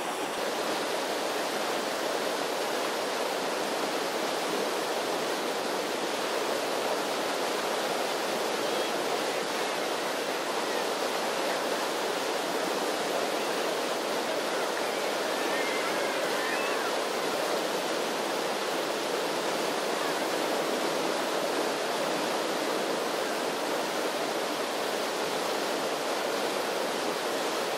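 Rapids of an artificial whitewater slalom channel rushing steadily, an even, unbroken noise of churning water.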